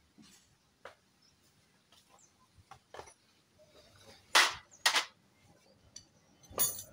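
Scattered light clicks and knocks of tools and metal engine parts being handled during a motorcycle engine teardown, with two louder sharp clacks about four and five seconds in and another near the end.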